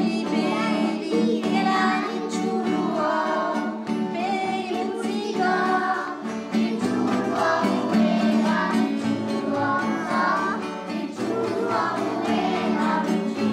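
A class of young children singing a Corsican song together in chorus.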